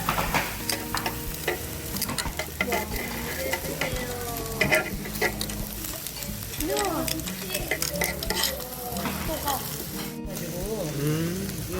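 Pork sizzling on a grill over oak-wood charcoal, a steady hiss with scattered short clicks.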